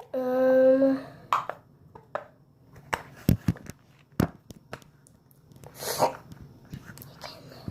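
A girl's voice holds a short steady hum for about a second. Then come scattered taps and knocks of a phone and other things being handled and set down, with a short breathy puff about six seconds in.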